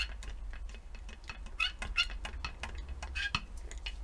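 Irregular light metallic clicks and clinks, a few a second in clusters, from a hand grease gun being pumped to force a seized brake caliper piston out, over a low steady hum.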